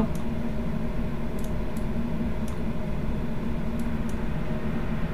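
Steady low background hum with a few faint, short clicks, typical of a computer mouse being clicked.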